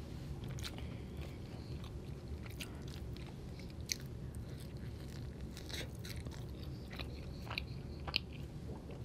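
A person chewing and biting into naan dipped in curry, eaten by hand, with scattered sharp mouth clicks and smacks; the loudest come about four seconds in and again near the end.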